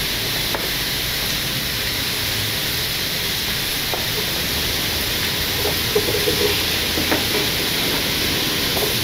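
Steady sizzling hiss of zucchini frying in an aluminium pot. About halfway through come a few light knocks and scrapes as diced tomato is pushed off a cutting board with a knife into the pot.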